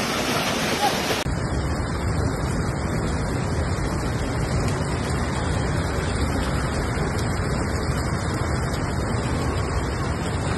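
Steady rush of a hailstorm: hail and heavy rain falling, with wind. About a second in, it cuts to another recording of the storm that sounds duller and weighted toward the low end.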